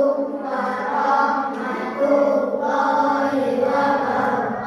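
A class of children reciting a prayer together in unison, in a drawn-out, sing-song chant.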